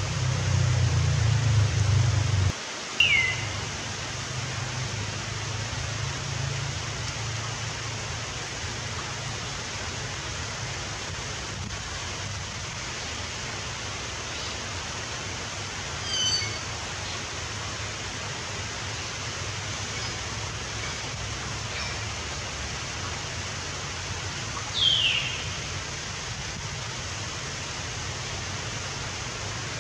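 Steady hissing outdoor background noise, with a few short, falling bird chirps: one about three seconds in, a brief run of high notes midway, and a louder chirp near the end. A low rumble underneath stops abruptly about two and a half seconds in.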